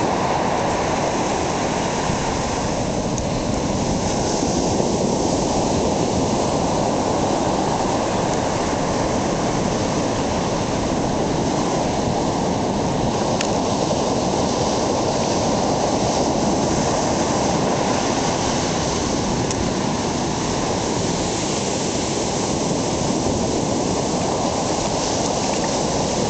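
Ocean surf breaking and washing up a sand beach, a steady rushing that does not let up.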